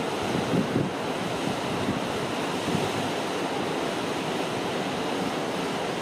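Steady, even rushing outdoor noise with no distinct events.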